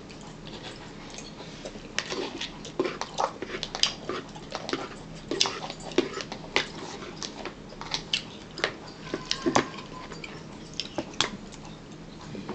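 A spoon scraping and knocking against a plastic bowl, with chewing while eating: a run of irregular clicks and taps that thins out near the end.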